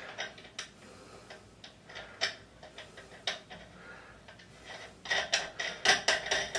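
A steel nut being spun by hand counterclockwise onto the left-hand-threaded arbor of a bench buffer, giving small metallic ticks: a few scattered clicks, then a quick run of clicks and clinks near the end.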